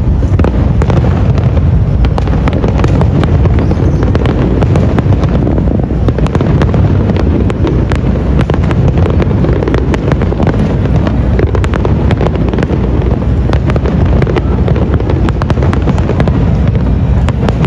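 Aerial fireworks shells bursting in quick succession: a loud, continuous low rumble with many sharp crackles.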